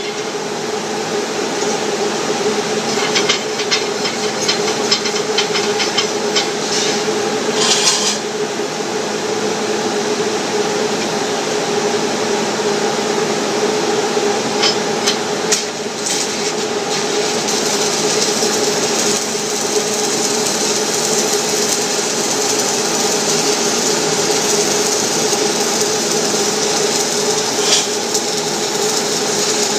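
Stick welding arc burning a 6010 mild steel rod while a bead is run: a steady, dense crackle and hiss with scattered sharper pops, over a steady hum.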